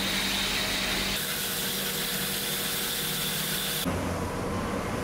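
Horizontal band saw cutting through steel bar: a steady hiss with a thin high whine. About four seconds in it gives way abruptly to a duller, lower rumble.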